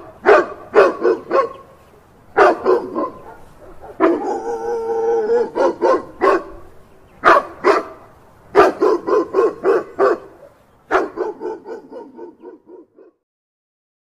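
A dog barking in quick volleys of several barks each, with one longer drawn-out call about four seconds in. The last volley fades away about a second before the end.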